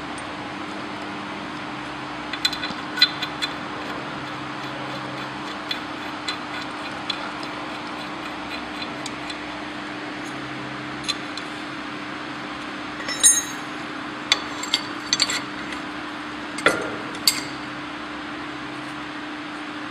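Metal fittings clicking and clinking as they are worked by hand onto the steel frame of a shuttleless wire mesh loom, in scattered clusters that come thickest and loudest in the second half. Under it runs a steady low hum.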